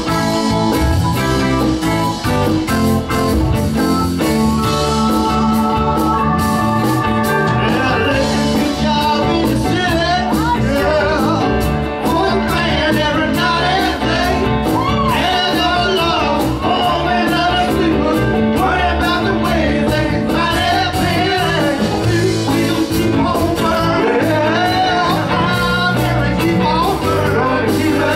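Live band playing an upbeat song with drums and electric guitar. About eight seconds in, two men join in singing into handheld microphones over the band.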